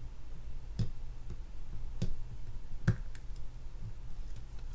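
A few sharp, irregularly spaced small clicks, the loudest about three seconds in: a metal pick and small parts being worked around the fishing reel's click spring and post. A steady low hum runs underneath.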